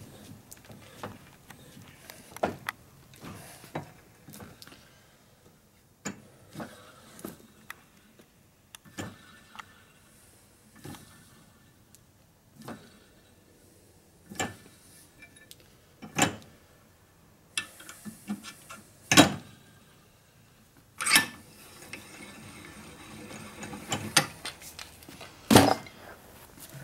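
Metal tool work on a Harley Evolution flywheel's sprocket shaft: irregular clicks and clinks as the screw-type bearing installing tool is worked with a wrench and taken off after pressing on the Timken bearing. There are several louder clanks in the second half.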